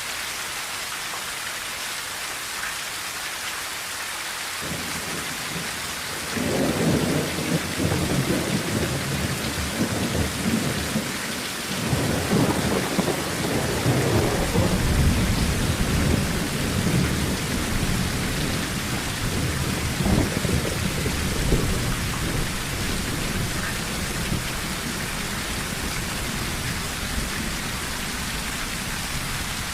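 Steady rain drumming on a tin roof, with a long rolling thunder rumble. The thunder swells about six seconds in, stays strong for some fifteen seconds, then slowly dies away while the rain carries on.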